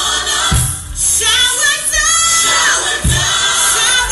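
Gospel music with a choir singing over a beat, a deep bass hit landing twice.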